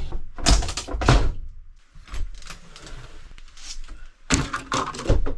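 Irregular knocks and thuds, with loud ones about half a second and a second in and again near the end, and quieter knocking between.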